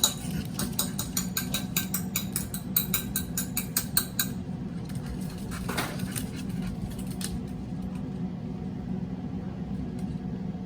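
A small dog's claws clicking quickly and irregularly on a hard floor as it runs, stopping about four seconds in. A steady low hum runs underneath.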